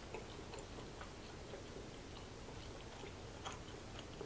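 Faint closed-mouth chewing of soft macaroni and cheese: small, irregularly spaced wet mouth clicks over a low steady background hum.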